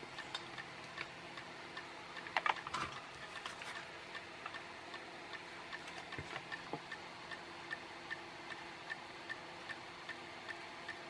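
Faint, steady ticking, with a few light clicks and taps from a small circuit board and tools being handled, loudest about two and a half seconds in.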